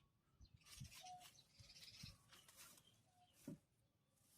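Near silence with faint bird calls: a short single note repeated twice, a couple of seconds apart, among a few fainter high chirps. A brief soft knock about three and a half seconds in.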